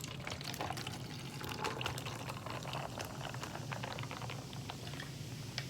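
Sprite soda poured over ice, fizzing with many small crackling pops.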